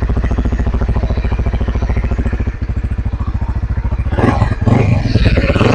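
Honda Winner X single-cylinder motorcycle engine running through its exhaust with an even, pulsing idle, then getting suddenly louder about four seconds in as the throttle is opened.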